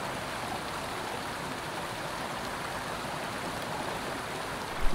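A small mountain creek running steadily, an even rush of water.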